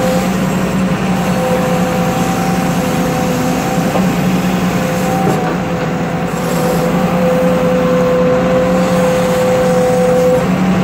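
Excavator's diesel engine running under load, with a steady whine over it while the bucket digs and dumps dirt. The whine stops shortly before the end.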